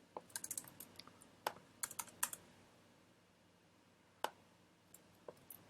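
Computer keyboard typing: a quick run of key clicks, a pause, then a few single keystrokes.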